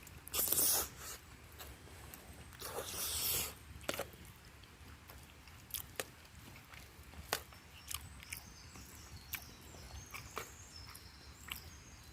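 Camping gear being handled while packing up: two brief rustling swishes near the start, then scattered light clicks and taps.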